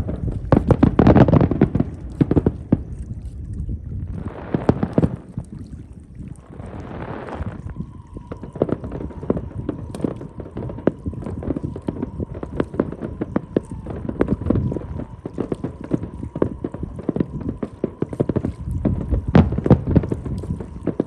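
Aerial fireworks going off in quick succession, a dense run of bangs and crackles with heavier volleys about a second in, around the middle and near the end. Two short hissing swells come about four and seven seconds in, and a faint steady high tone holds from about a third of the way through.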